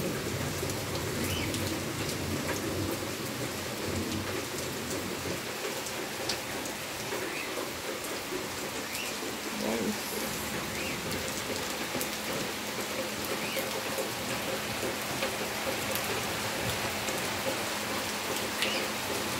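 Heavy rain falling steadily, a constant hiss with many scattered individual drop hits.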